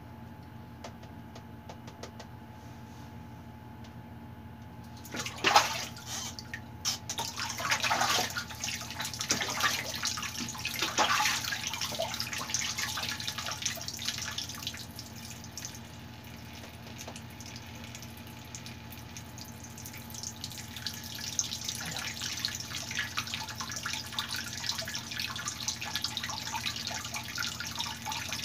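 Water from a wall tap running into a plastic bucket, starting about five seconds in; the splashing is uneven at first, then settles into a steady pour.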